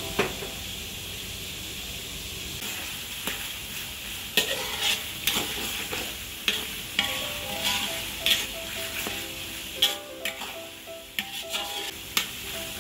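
Pork pieces in an oily tomato-and-chilli sauce sizzling in a large metal wok, stirred with a metal spatula that scrapes and clinks against the wok at irregular moments.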